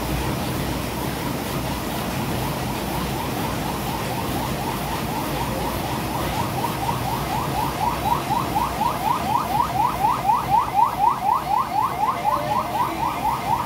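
An electronic alarm chirping rapidly, about five short rising chirps a second, fading in and growing louder through the second half. Steady background noise runs underneath.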